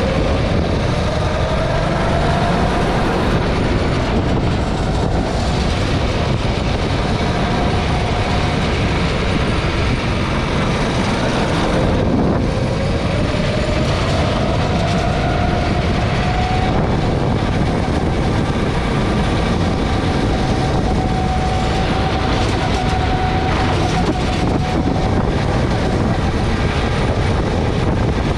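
Go-kart engine heard from onboard as the kart laps the track, over a heavy steady rumble. Its pitch climbs as the kart accelerates, drops sharply about twelve seconds in, then climbs again and holds fairly steady before easing off near the end.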